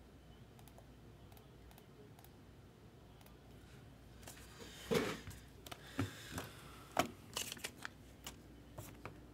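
Quiet room tone, then from about four seconds in a run of short clicks, taps and rustles of hands handling objects, the loudest about five and seven seconds in.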